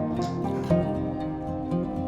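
Background music: a gentle instrumental track led by plucked strings, with a steady beat.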